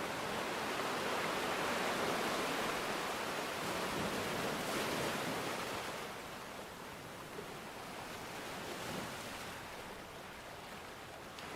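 Rushing water noise with no distinct drops or tones. It is fuller for about six seconds, then eases to a softer hiss before building again near the end.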